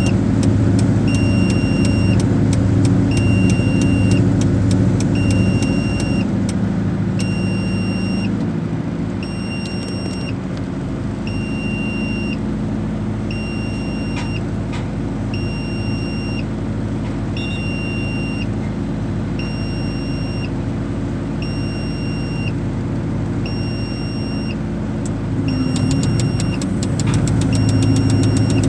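Diesel engine of a Terex 160-2 mobile crane running under load, easing off after several seconds and picking up again near the end. Over it an electronic warning beep sounds about every two to three seconds, each beep about a second long, stopping shortly before the engine picks up.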